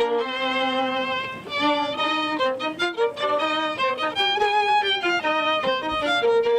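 Violin playing a quick melody of short notes with vibrato, now and then two notes at once.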